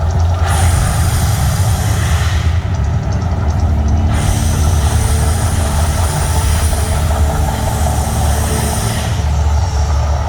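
Mirage volcano show erupting: a continuous deep rumble, with loud hissing that comes in twice, once for about two seconds near the start and again for about five seconds from about four seconds in.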